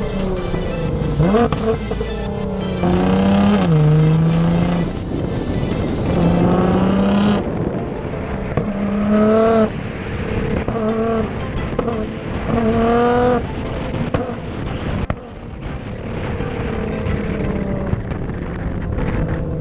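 Tuned Nissan GT-R R35's twin-turbo V6 revving under acceleration, its pitch climbing and dropping back in steps as it shifts through the gears.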